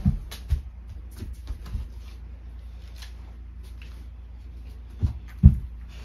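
Several dull thumps with light rustling, from children climbing off the bed and moving about a small room; two more thumps come near the end, the second the loudest.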